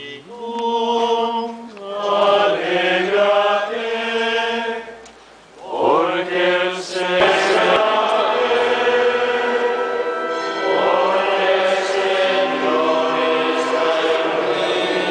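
A choir singing a slow hymn in held notes. It dips briefly about five seconds in, then comes back fuller and steady.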